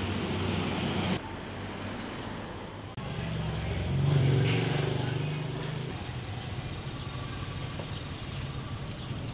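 Street traffic ambience. About four seconds in, a passing motor vehicle's engine swells and then fades. The background changes abruptly about one and three seconds in.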